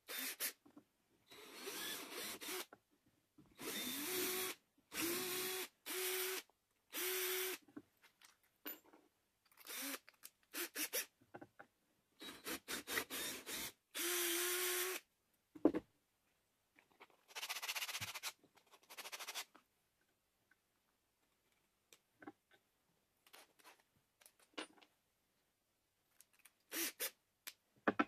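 Cordless drill running in repeated short bursts of one to two seconds, boring into small blocks of wood, with quiet pauses and light handling clicks between the bursts.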